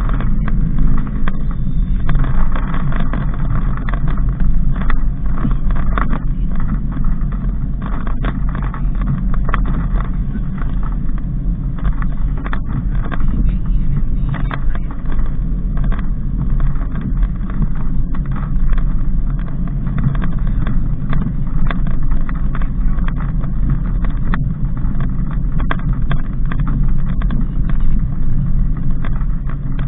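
Daihatsu Sigra on the move: steady engine and road noise with a low hum, broken by frequent short knocks and thumps.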